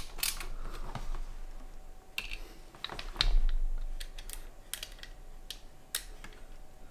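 Irregular small clicks and taps of hard plastic and metal PC parts being handled and fitted together during a quick build, with one louder knock a little after three seconds in.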